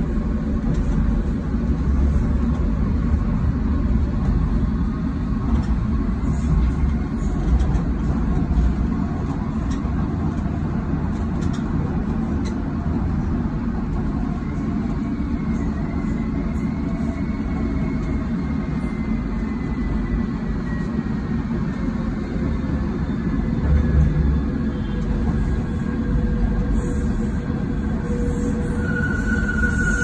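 Docklands Light Railway train heard from inside the carriage while running: a steady low rumble of the train on the track. A faint whine slowly falls in pitch midway, and a steady, higher whine sets in near the end.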